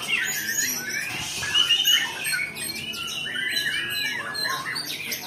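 Many caged white-rumped shamas (murai batu) singing at once in a contest: a dense tangle of overlapping whistled phrases, rising and falling glides and loops, louder for a moment about a second and a half in.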